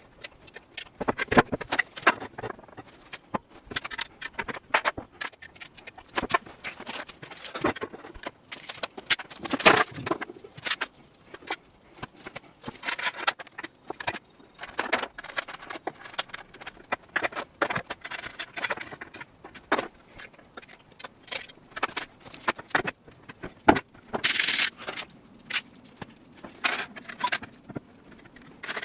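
Aluminium extrusion profiles, steel corner brackets and hammer nuts handled by hand on a wooden board: irregular metallic clinks, clicks and clatter as the parts are picked up, set down and fitted. A longer scrape comes late on.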